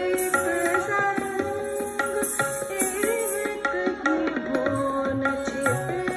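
Hindustani classical accompaniment for Kathak dance: tabla strokes under a held, gliding melodic instrument line.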